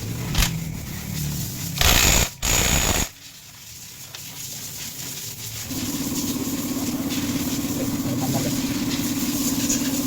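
Loud noisy bursts in the first three seconds, then from about halfway a steady engine hum: the Yamaha Aerox 155's single-cylinder engine running at idle after its CVT rebuild.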